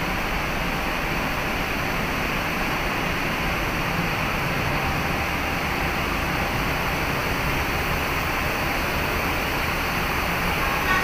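Steady, even rumble and rush of a ferry's engines and ventilation on its enclosed car deck, unchanging throughout.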